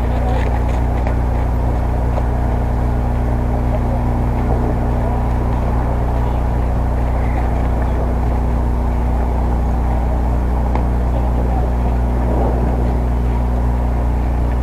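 A steady low mechanical hum at a constant pitch, unchanging throughout.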